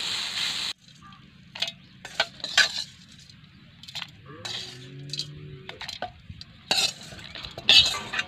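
Steel spatula clinking and scraping against an iron kadai and a steel mixer-grinder jar as fried beetroot chutney ingredients are scooped into the jar, in a series of irregular clinks. Frying sizzle is heard for the first moment and stops suddenly.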